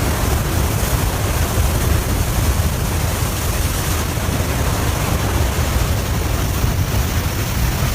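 Strong wind rushing and buffeting the microphone: a steady, loud roar with a heavy low rumble.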